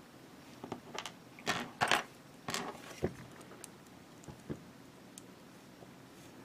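Small plastic model-figure parts being handled and pressed together, giving a quick run of light clicks and rattles over the first few seconds, then a couple more taps about four and a half seconds in.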